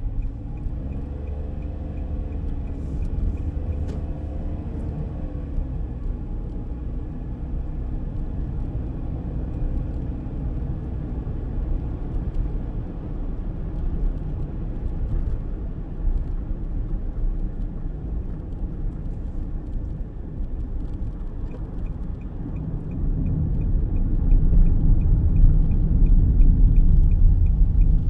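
Road noise inside a car driving along: a steady low rumble of tyres and engine, with a rising and falling engine tone in the first few seconds and louder rumble over the last five seconds. A regular light ticking sounds at the start and again over the last several seconds.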